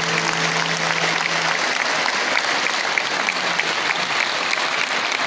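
Audience applauding, with the last held note of the music fading out under it about a second and a half in.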